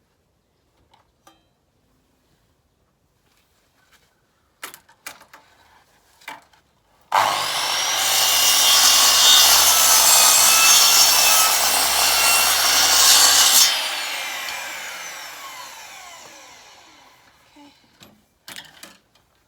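Electric saw cutting a pallet-wood board. A few light knocks come first. About seven seconds in the saw starts sharply and cuts for about six seconds, then the blade winds down with a falling whine that fades over the next few seconds.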